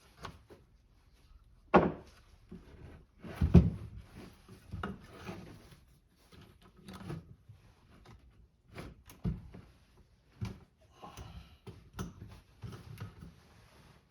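Handling of a glued-up wooden board and the ratchet strap clamping it: a string of knocks, clunks and clicks, the loudest two thuds about two and three and a half seconds in.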